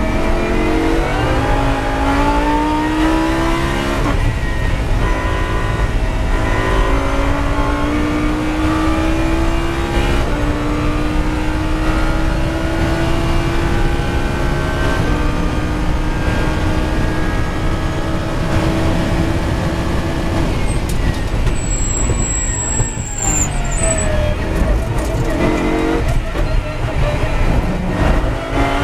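Lamborghini race car's V10 engine at full throttle, heard from inside the cockpit. It pulls up through the gears with a climbing pitch that drops at each upshift. Near the end it brakes hard, downshifting into a slow corner, then accelerates again.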